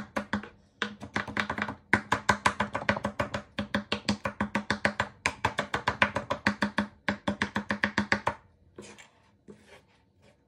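Chef's knife mincing garlic on a wooden cutting board: fast, even chops at about seven a second with a few short breaks. The chopping stops about eight seconds in, leaving a few scattered taps and scrapes.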